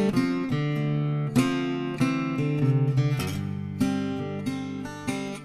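Credit music: strummed acoustic guitar playing chords that change every second or so.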